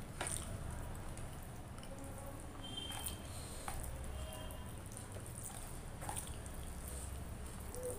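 Fingers squishing and mixing soft cooked rice with potato curry on a plastic plate: soft wet squelches, with a few sharp clicks.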